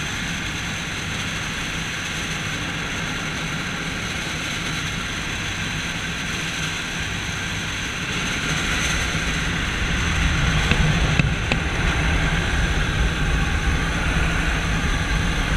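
Jump plane's engines and propellers droning steadily as heard from inside the cabin. The drone gets louder about ten seconds in.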